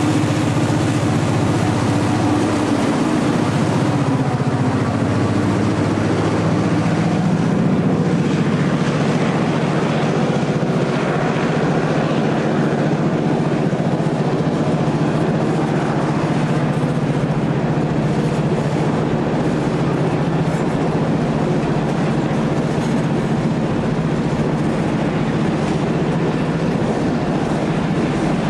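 Freight train passing: loaded centerbeam lumber cars rolling by on steel wheels with a steady rumble and some clacking of the wheels, over the low, continuous drone of the EMD SD38 locomotive's 16-cylinder diesel working under load. The engine sound is strongest in the first few seconds and shifts as the locomotive pulls away.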